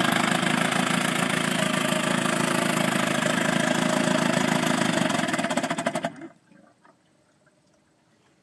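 Viking 6 hp small engine, its carburettor freshly rebuilt, running steadily, then its firing slows into separate beats and it stops about six seconds in.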